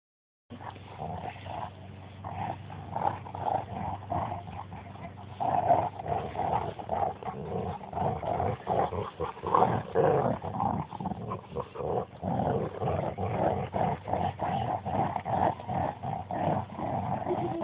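Two dogs growling continuously and rapidly in play while tugging on a toy in a game of tug of war.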